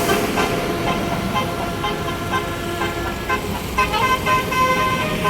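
Indonesian tour bus 'telolet basuri' multi-tone horn playing a tune of short notes that step from pitch to pitch.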